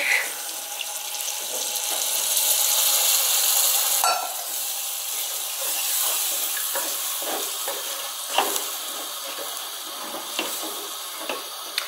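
Tomato paste frying in oil in a saucepan sizzles and hisses as water is poured in, strongest in the first few seconds. A wooden spoon stirs and scrapes the pan, with a few short knocks later on.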